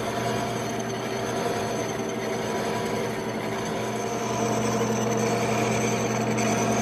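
Horizontal milling machine running steadily, its ganged pair of slot cutters taking a pass to cut splines, with a steady motor and gear hum under the cutting noise. It grows slightly louder about four seconds in.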